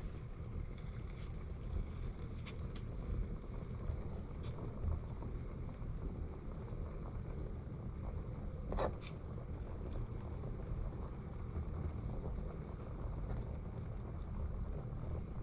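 Low, steady rumble of wind on the microphone, with a few faint ticks and one brief knock about nine seconds in.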